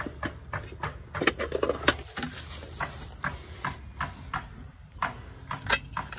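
Irregular clicks, taps and light rattles of an outdoor air-conditioner disconnect box being handled: its hinged cover swung open and hands working at the pull-out disconnect block.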